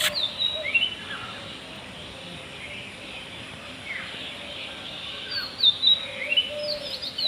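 Small birds chirping: quick, high, sweeping chirps in two flurries, one at the start and another from about five seconds in, over a steady background hiss. A sharp click right at the start.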